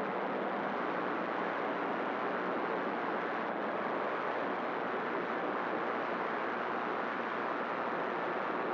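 CB radio receiver hissing steadily with its squelch open: band static with no station transmitting.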